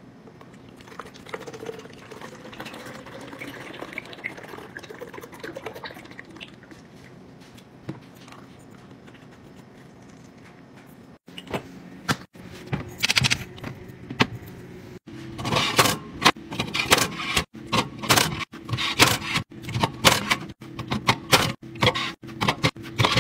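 Liquid coffee creamer pouring from its plastic bottle into a glass carafe, then a quick run of sharp clatters and knocks as aluminium drink cans are set into a wire can rack, denser in the second half.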